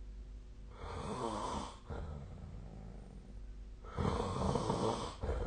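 A person snoring in sleep: two snores about three seconds apart, each lasting about a second. A steady low hum runs underneath.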